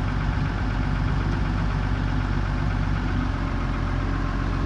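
An engine idling steadily, a constant low drone with a fast, even firing pulse.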